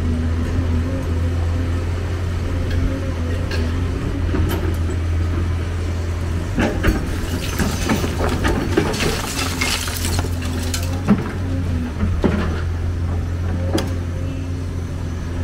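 Hyundai 290 crawler excavator's diesel engine running steadily under load. About halfway through, broken concrete and brick clatter and clink for a few seconds as the bucket scoops and lifts rubble, and a few sharp knocks follow.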